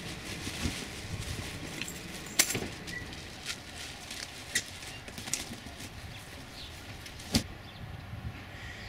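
Cardboard box and plastic packaging being handled and unpacked: rustling with several sharp crackles and clicks, over a steady background hiss.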